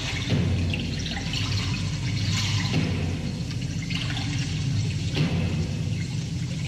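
Live punk band playing, captured as a heavily distorted, muddy recording: a dense wash of noise over a low bass drone, with no clear melody coming through.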